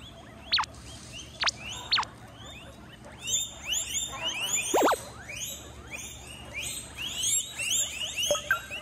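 Guinea pigs wheeking: high, whistle-like squeals, a few single calls at first, then many overlapping in quick succession from about three seconds in.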